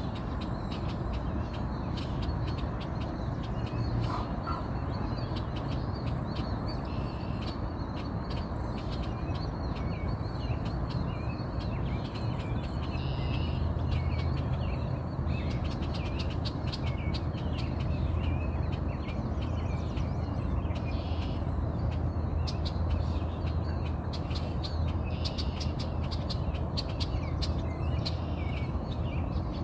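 Outdoor birdsong: many small birds chirping and calling, with some harsher crow-like calls, over a steady low rumble. The chirps grow busier about halfway through.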